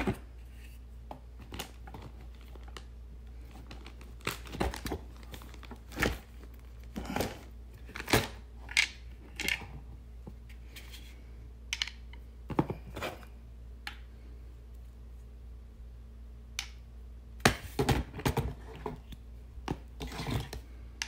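Scattered clicks, taps and plastic crinkling as brass quick-connect fittings and a plastic extension wand section are handled and fitted together over a plastic packaging bag, with a steady low hum underneath.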